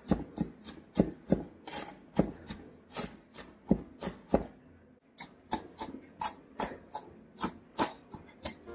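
Chef's knife chopping garlic on a wooden cutting board: a steady run of sharp knocks of the blade on the wood, about three a second, with a brief pause about five seconds in.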